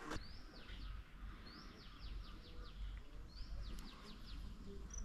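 A songbird singing the same short phrase three times, about a second and a half apart: a quick rising note followed by a fast run of falling notes. Faint, over a low steady rumble.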